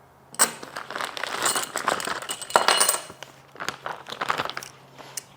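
Small metal shims clinking against one another as they are handled and stacked. There is a busy run of light clinks and jingles for the first few seconds, then a few scattered clicks.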